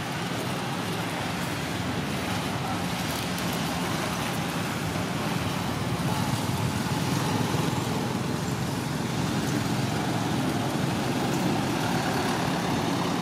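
Steady background road traffic noise, an even rumble.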